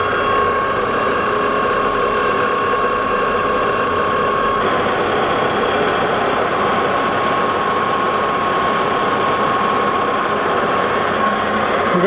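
Lodge & Shipley engine lathe running under power, with a steady gear whine, as its tool takes a facing cut across the end of a spinning brass part. The whine's tone shifts a little about four and a half seconds in, and faint scratchy cutting sounds come through in the later part.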